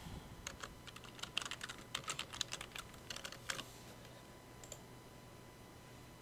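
Typing on a computer keyboard: a quick, uneven run of key clicks that stops about three and a half seconds in, followed by one fainter single click.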